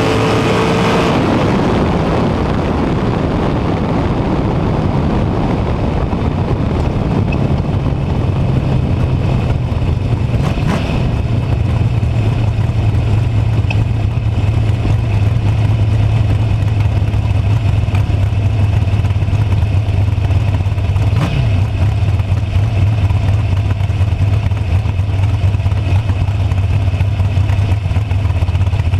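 Dragster engine winding down after a pass: the engine and rushing wind noise fall away over the first few seconds as the car slows, then the engine settles into a steady low-speed running as the car rolls out the shutdown area. A couple of short clicks are heard along the way.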